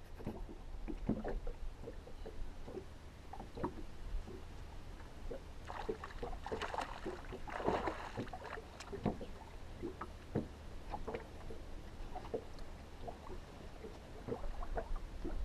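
Scattered light knocks and taps in an aluminium fishing boat over water lapping, with a burst of splashing about six to eight seconds in as a hooked perch thrashes at the surface beside the boat.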